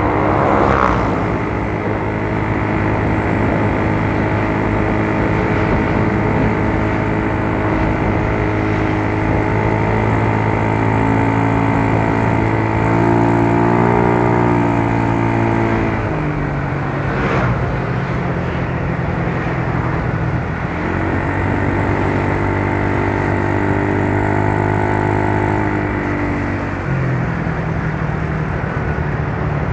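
2008 Yamaha Mio Soul scooter's single-cylinder engine running under way, its pitch rising and falling several times with the throttle, with wind rushing over the microphone.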